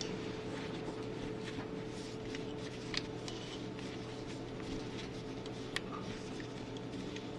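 Small clicks and handling noises over a steady low hum, with a sharper click about three seconds in and another near six seconds.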